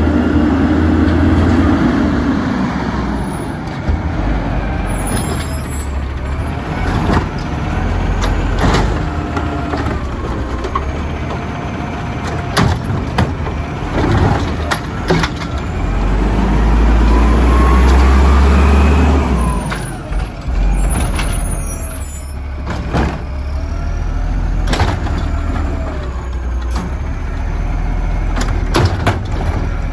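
Natural-gas-powered automated side-loader garbage truck working its lifting arm. The engine revs up to drive the hydraulics, loudest midway, and the hydraulic whine rises and falls as the arm grabs, lifts and tips the cart. Repeated clunks and bangs come from the cart and the falling trash, with two short hisses of air.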